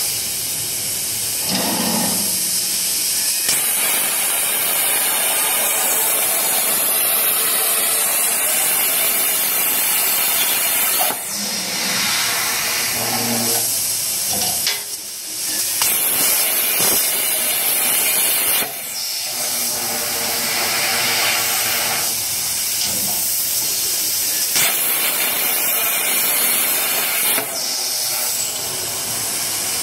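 Plasma torch of a CNC pipe cutting machine hissing steadily as it cuts through square steel tube. The hiss changes in tone and dips briefly every few seconds as one cut ends and the next begins.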